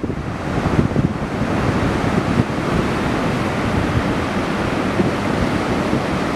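Ocean surf breaking and washing up on a sandy beach, a steady rushing sound, with wind on the microphone.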